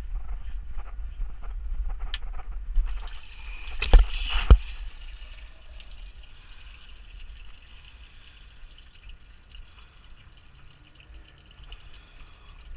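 Engine coolant trickling and dripping out during a radiator removal, with two sharp knocks about four seconds in.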